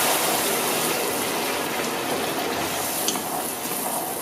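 Water sizzling and bubbling in a hot frying pan, just poured over rice toasted in butter and oil, while a wooden spoon stirs it; the steady hiss slowly dies down as the pan cools.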